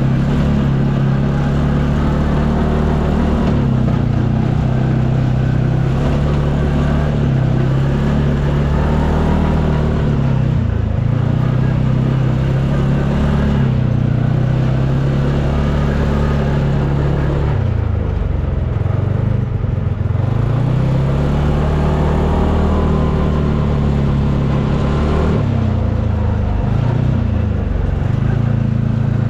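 UTV engine running steadily under way, its pitch drifting up and down with the throttle; about two-thirds of the way through it drops sharply, then climbs back.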